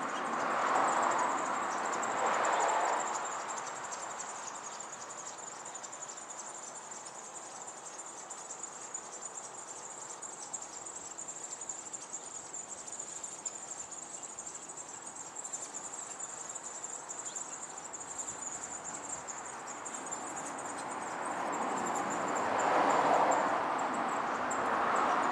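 A steady, high-pitched, rapidly pulsing insect trill, cricket-like, runs throughout. Soft rustling swells rise over it in the first few seconds and again near the end.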